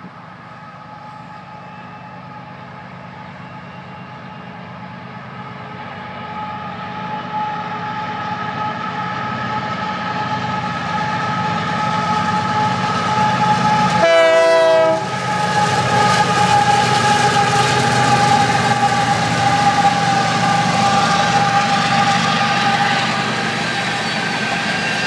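Freight train with diesel locomotives approaching and passing: the engines' low rumble and a steady high whine grow louder as they near, with a brief sharp sound about 14 seconds in. After that comes the continuous rolling clatter of tank cars going by.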